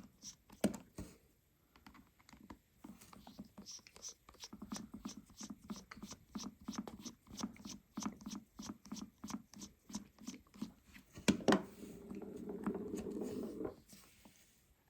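Precision screwdriver turning out the two pentalobe screws at the base of an iPhone 12: a long run of faint, quick little clicks, several a second. Near the end comes a louder click, then about two seconds of a steady low rasp.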